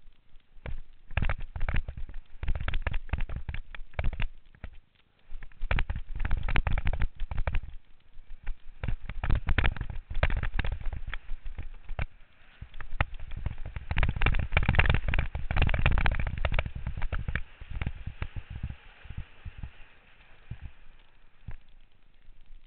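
Downhill mountain bike and its loosely tightened helmet camera rattling and clattering hard over a rough dirt trail, in long bursts of jolts with brief lulls. About eighteen seconds in the clatter thins to a fainter hiss as the run ends and the bike slows.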